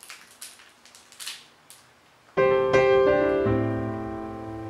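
Faint crinkling of a small plastic candy wrapper being opened by hand, then about halfway a sudden loud piano chord, followed by a few more chords that ring on and slowly fade.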